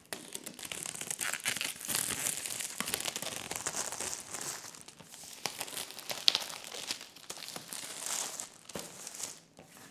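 Thin plastic shrink-wrap film being torn and peeled off a cardboard box, crinkling and crackling continuously, with one sharper snap about six seconds in.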